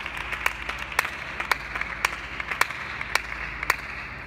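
Table tennis balls ticking off tables and bats in a rally: a sharp tick about every half second with fainter ticks between, over a steady hiss of hall noise.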